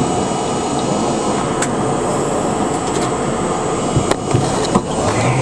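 R32 subway train running, heard from inside the front car: a loud, steady rumble of wheels on rail, with a few sharp clicks as the wheels cross rail joints, two of them close together near the end.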